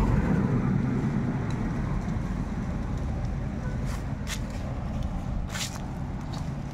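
A motor vehicle's rumble fading away as it passes and recedes, with a few light clicks near the middle.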